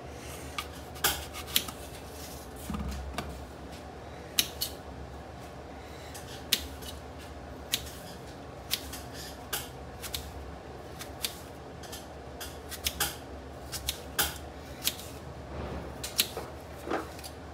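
Knife cutting an apple on a stone countertop: irregular sharp taps as the blade cuts through and strikes the counter, about one or two a second.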